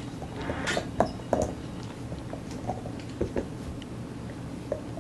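German Shepherd gnawing a white chew bone: irregular clicks and scrapes of teeth on the bone, with a few sharper bites about a second in.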